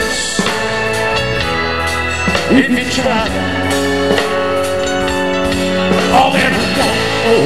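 Live band playing a slow Southern rock ballad: guitars and drum kit with a man singing at the microphone.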